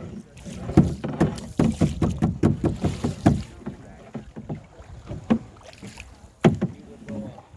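Canoe going through small rapids: a quick, irregular run of splashes and knocks from paddles and water on the boat, thinning out about halfway through to a few single strikes.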